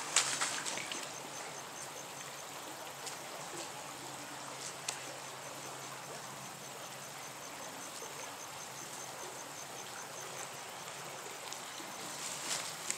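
Shallow creek water running over rocks: a steady rushing, with a short sharp sound right at the start.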